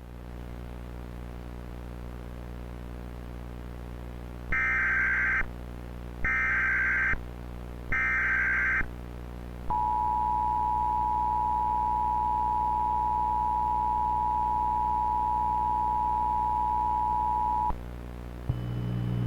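Emergency Alert System encoder (EASyPLUS) sending its SAME header: three one-second bursts of warbling digital data tones, then the eight-second two-tone EAS attention signal. A steady electrical buzz runs underneath, and a deeper hum swells in near the end, just before the voice message.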